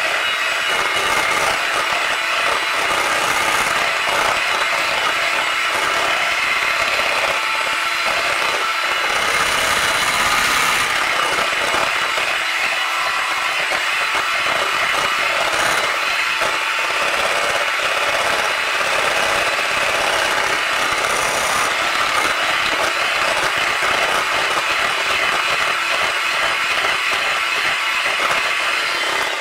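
Electric hand mixer running steadily, its beaters churning thick cheesecake batter in a glass bowl for the final mix; the motor cuts off at the very end.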